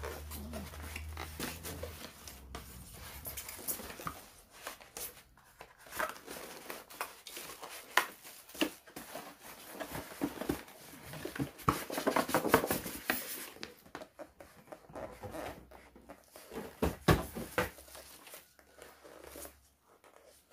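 Unpacking a boxed appliance: cardboard and plastic wrapping rustling and crinkling, with irregular knocks and scrapes as things are pulled out and handled, busiest about halfway through.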